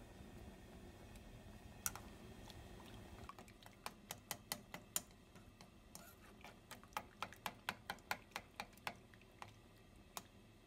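A stirring utensil clicking lightly against a nonstick frying pan as powdered mushroom cream soup is stirred into water. A single click comes about two seconds in, then a faint run of sharp clicks, about three or four a second, for several seconds.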